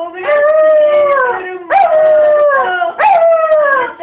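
Small shaggy dog howling in three long, drawn-out cries, each sliding down in pitch.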